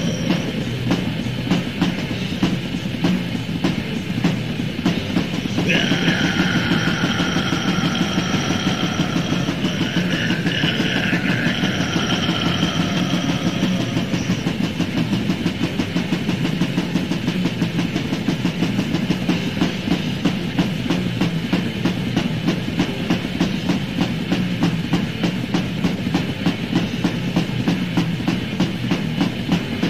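Lo-fi demo-tape recording of raw death/black metal: distorted guitars over rapid, relentless drumming. A high held note rises over the mix from about six to fourteen seconds in.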